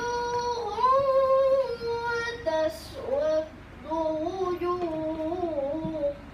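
A boy chanting a Quran recitation in a melodic style: long held notes that bend and glide in pitch, sung in phrases with short breaks. The voice stops about six seconds in.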